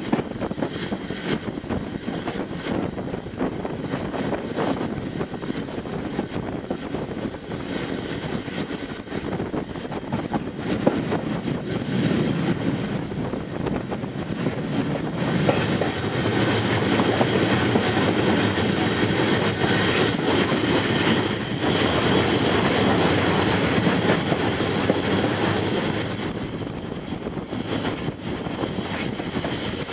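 Steam-hauled train running along the line, heard from on board: a steady rumble of wheels on the rails and rushing air, with scattered clicks over the rail joints. It grows louder about halfway through and eases a little near the end.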